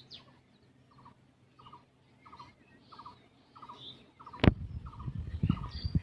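A bird's short call, each note a quick run of rapid pulses, repeated about every two-thirds of a second. About four and a half seconds in there is a sharp knock, followed by low bumps and rustling.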